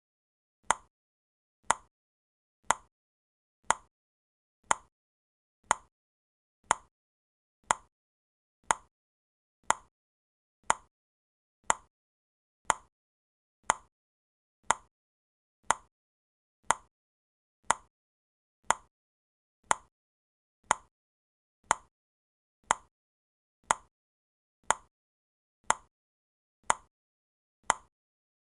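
Countdown timer ticking like a clock: one sharp, dry tick about every second, with silence between the ticks.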